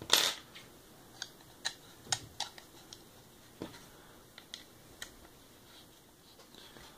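Hand-tool handling on a polymer AR-15 handguard: an Allen wrench clicks and ticks against the screws and the plastic as the rail-section bolts are turned in, with a louder scrape of handling at the start.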